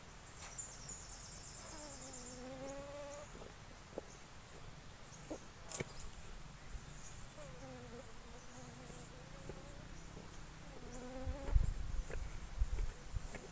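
A flying insect buzzing past the microphone three times, its hum dipping and then rising in pitch on each pass. A few low thuds near the end.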